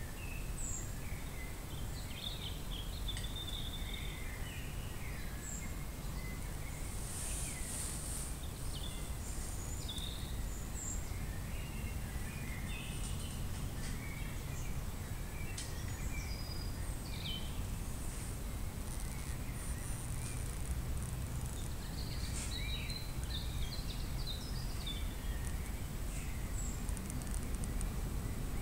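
Birds chirping and calling on and off over a steady low background rumble.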